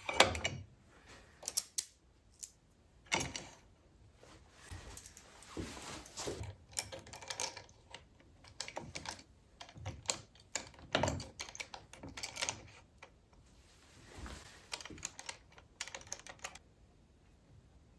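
Irregular clicks, taps and light knocks of jig hardware being handled as an accessory is fastened to the top of the stock carriage, with a short scrape here and there; it stops a little before the end.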